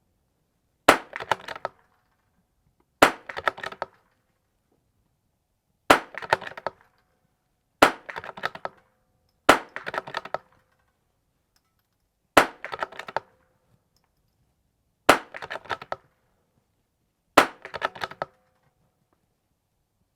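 Eight shots from a Vudoo bolt-action .22 LR rimfire rifle, one every two to three seconds, each sharp crack followed by a short rattle of clicks as the bolt is worked for the next round.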